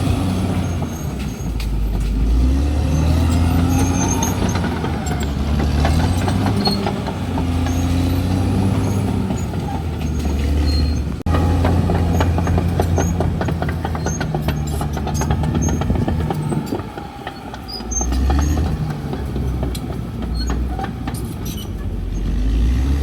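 CAT D6R XL bulldozer's diesel engine working under changing load, its pitch rising and falling, with frequent short clicks and knocks. The engine eases off briefly about three quarters of the way through, then picks up again.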